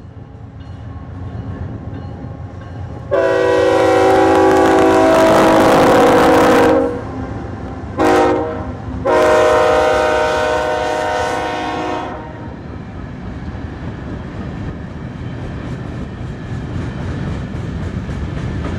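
Diesel freight locomotive air horn sounding a chord: a long blast, a short one, then another long one. Under and after it, the train's freight cars roll past with steady wheel clatter that grows louder toward the end.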